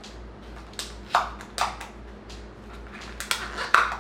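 A few sharp plastic clicks and taps as slime containers are handled and set aside.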